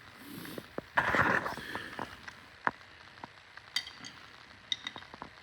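Metal hand tools, sockets and a socket wrench, being picked up and handled: a rustle about a second in, scattered clicks, then light metallic clinks that ring briefly, twice near the end.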